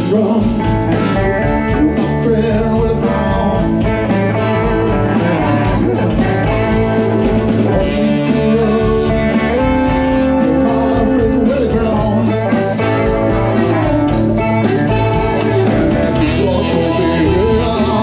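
Live blues band playing amplified: electric guitar and drums, with a harmonica playing long bending notes over them.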